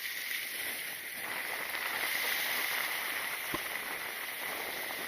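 Sea water washing and gurgling around shoreline rocks, a steady hiss that swells a little about a second in, with a steady high-pitched tone underneath and a single faint knock midway.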